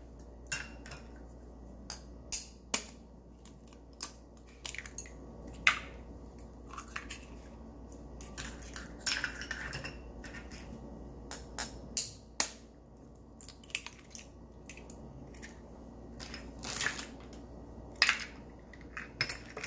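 Eggs being cracked with a knife blade and their shells pulled apart over a glass mixing bowl: scattered sharp taps and shell cracks, with several louder cracks spread through, and small clinks of shells and dishes.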